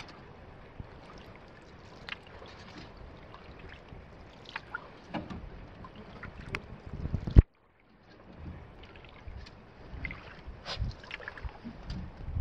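Canoe paddling on calm water: paddle strokes with water dripping, small splashes and lapping against a wooden hull. A single sharp knock comes about halfway through, and the sound drops out briefly just after it.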